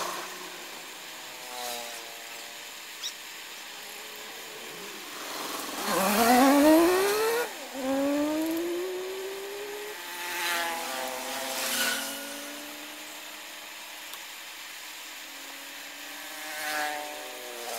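Motorbike engines passing by. The loudest, about six seconds in, accelerates with a steeply rising pitch, drops at a gear change and climbs again. Fainter ones come and go later. Underneath runs the steady hiss of a butane torch flame.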